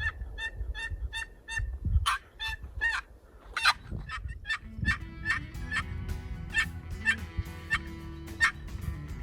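Turkey yelping in a long run of short, evenly spaced calls, about four a second at first, then more spread out. Background music comes in under the calls about halfway through.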